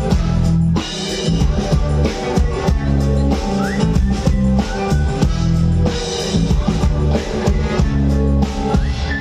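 A live band playing with a steady rock beat on drum kit, bass and guitar.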